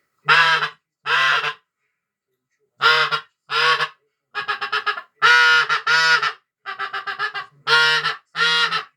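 Mouth-blown goose call, a hunting call made by Ivan Zolotarev, blown in a sequence of loud two-part honks with a break in pitch, separated by two runs of quick short clucks. The calling sounds more like a bean goose than a greylag.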